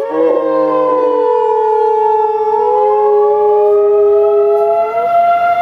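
Tornado warning siren wailing. Two long tones: one slowly sinks in pitch and then sweeps up and stops near the end, while a second one rises from about halfway through.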